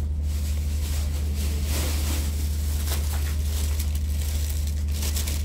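Thin plastic shopping bags rustling as they are picked up and lifted, over a steady low hum.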